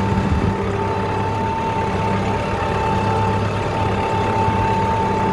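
Tractor engine running steadily, a low hum with a steady higher whine over it.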